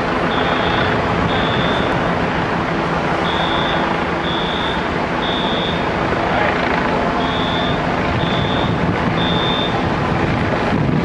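Building fire alarm sounding in the temporal-three evacuation pattern: high beeps a second apart in groups of three, with a longer pause between groups, over the steady rumble of idling fire engines.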